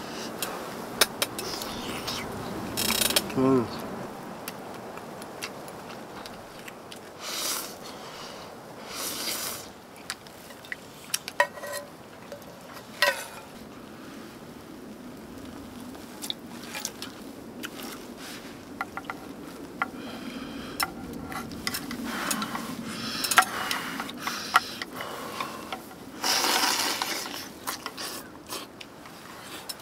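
A string of sharp clicks, clanks and short rustling bursts from camping gear being handled, with one brief downward squeak near the start.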